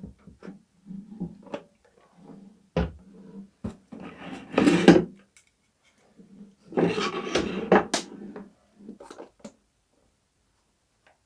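Hard plastic parts of a Wagner W590 Flexio paint sprayer being handled as the paint container is unscrewed and a larger one fitted: a sharp knock about three seconds in, then two longer spells of plastic rubbing and scraping, around the fifth and seventh seconds, among small clicks.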